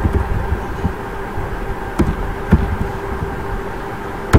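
Steady electrical buzzing hum on the recording, with three sharp clicks from the computer: two about two seconds in and a louder one near the end.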